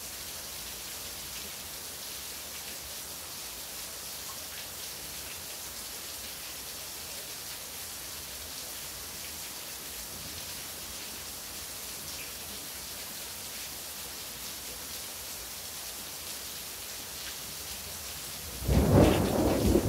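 Steady hiss of falling rain, then near the end a sudden loud clap of thunder that goes on rumbling.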